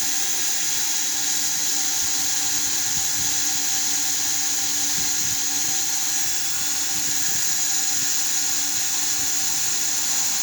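Power drill with an 1/8 inch bit drilling a pilot hole in a metal roof rack, giving a steady high-pitched whine that runs unbroken.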